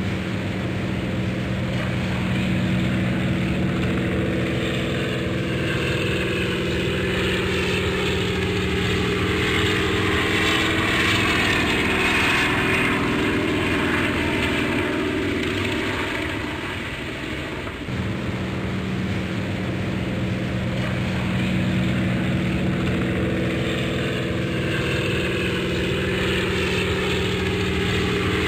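Propeller airplane engine running steadily with a continuous drone. The level dips briefly about two-thirds of the way through, then the sound comes back suddenly.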